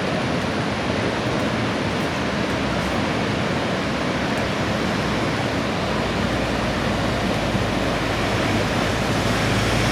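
Athirappilly waterfall in monsoon flow: a steady, even rush of falling water. A low rumble joins underneath from about six seconds in.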